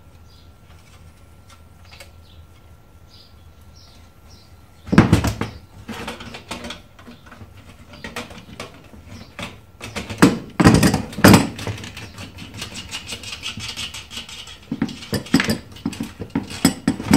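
Metal and plastic clattering and knocking as a set-top box's sheet-metal chassis is handled and taken apart with a screwdriver. A loud knock comes about five seconds in, a cluster of loud knocks around ten to eleven seconds, and a run of quicker clicks near the end.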